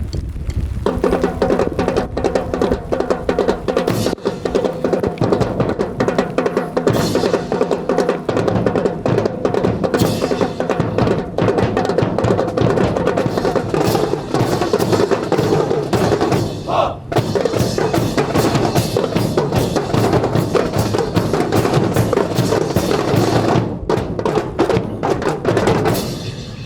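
Marching band playing music with a steady beat on snare and bass drums under held band tones, ending near the close.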